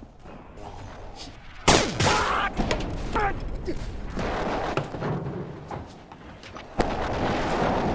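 Science-fiction laser blaster sound effects firing in a battle, 'pew-pew' shots. A sudden loud blast comes about two seconds in, followed by short zaps falling in pitch, and another loud burst near the end.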